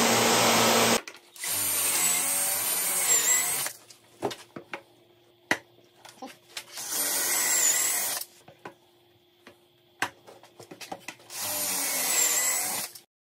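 A Festool random orbital sander running on a birch tread, cut off about a second in. Then a cordless drill boring pocket screw holes through a pocket-hole jig into the birch, three runs of a second or two each, its whine dipping in pitch near the end of each run, with clicks and knocks of handling in between.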